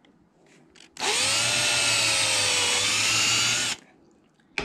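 Electric drill drilling a small hole into a wooden hiking stick at the edge of a metal medallion: the motor whines up in pitch and runs steadily for under three seconds, then stops. A short sharp click near the end.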